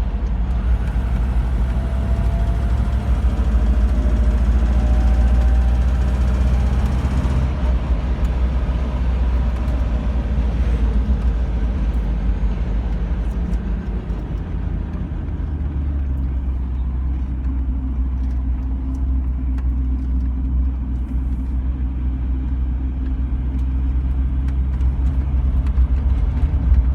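1981 Range Rover Classic's 3.5-litre V8 engine running under load, with a loud ticking that the owner notes is worse when the engine is cold and heard only under load. The engine pitch rises over the first several seconds as it accelerates, eases off around halfway, then runs steadily again.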